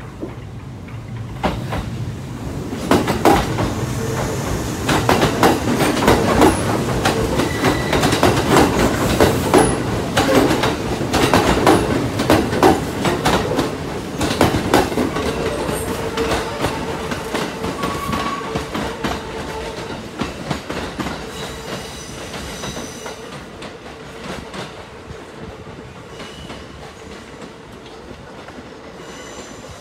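Kintetsu electric trains pulling out of a station together, their wheels clattering over rail joints and points. The clatter builds over the first few seconds, is loudest through the middle with a steady tone beneath it, and fades as the trains draw away.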